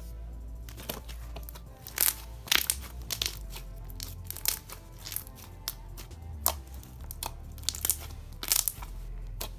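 Thick clear glue-and-borax slime being squished and stretched by hand, giving irregular sharp clicks and pops, over faint background music.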